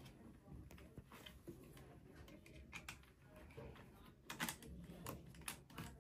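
Faint plastic clicks and handling noise as a phone clamp is fitted and tightened onto a helmet chin mount, with a cluster of sharper clicks in the second half.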